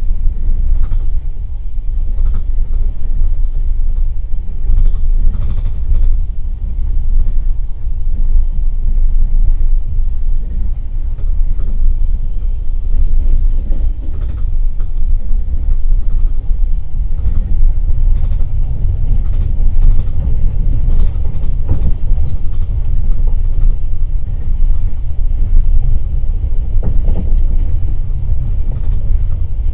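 Passenger railway carriage running along the track at speed: a steady low rumble of wheels on rails, with occasional short clicks over it.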